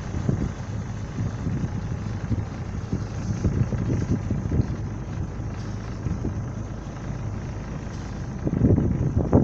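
Boat engine running steadily, with wind buffeting the microphone in irregular low gusts.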